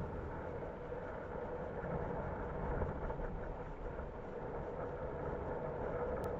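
Wind rumbling on the camera microphone over choppy sea water around a kayak, a fairly faint, steady noise.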